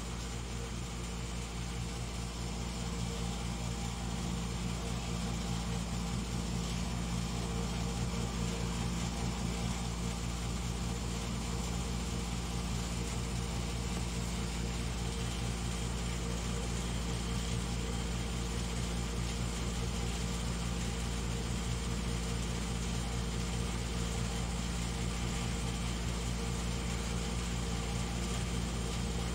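Steady mechanical hum made of several constant tones over a low rumble, unchanging throughout.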